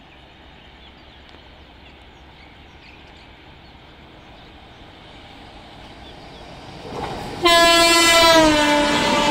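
WAP-7 electric locomotive approaching at high speed, its rumble slowly growing under faint bird chirps. About seven and a half seconds in, its horn sounds loud and sustained, and its pitch drops as the locomotive passes.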